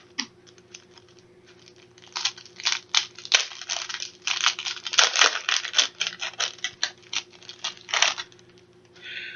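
Trading cards being handled and flipped through: a busy run of papery rustles, slides and scrapes of cardboard cards that starts about two seconds in and stops shortly before the end.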